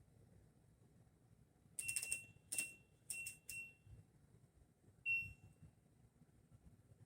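Electronic beeps from buttons being pressed: four short beeps in quick succession, each with a click, then a single beep about a second later, all at the same high pitch.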